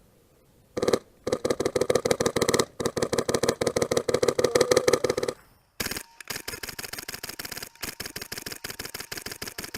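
Airsoft gun firing full-auto in long, rapid strings of shots. A run of about four seconds, broken by brief gaps, is followed after a short pause by a second, thinner-sounding string.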